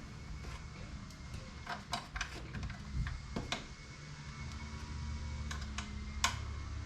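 Scattered light clicks and taps of a screwdriver and plastic intake plenum parts as a screw is driven in to hold the lower plenum to the upper, over a low steady hum that grows a little louder about five seconds in.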